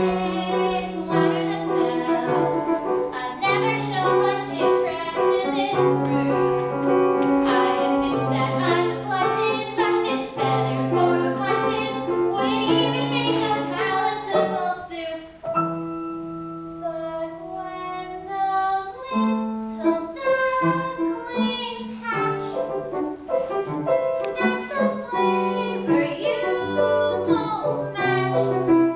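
Voices singing a song with piano accompaniment, with a short lull about halfway through before the singing picks up again.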